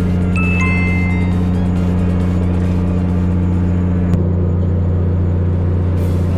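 A boat's engine or generator running with a steady low hum. A few short high electronic beeps sound about half a second in, and a single sharp click a little after four seconds.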